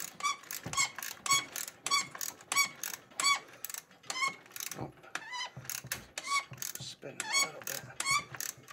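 Hand ratchet wrench being cranked back and forth on a bolt in a snowmobile's rear skid rail. It gives a run of short metallic pawl clicks, about three a second.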